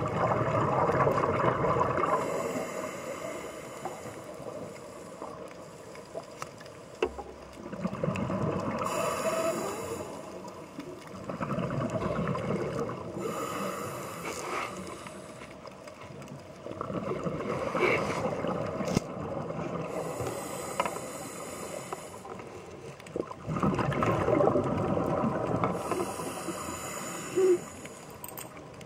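Scuba diver breathing through a regulator underwater: a hiss on each inhale and a rush of bubbles on each exhale, repeating every few seconds.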